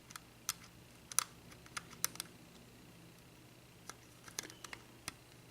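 Faint, irregular metallic clicks of a lock pick working the pin stack inside a Baldwin five-pin lock cylinder, with a few sharper ticks, about a dozen in all.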